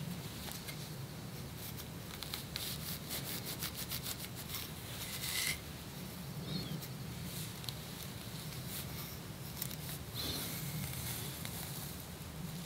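Scratching and scraping on the scalp, lifting dandruff flakes of seborrheic dermatitis: a run of quick scratchy rasps, thickest in the first half, with a louder scrape about five seconds in. A steady low hum runs underneath.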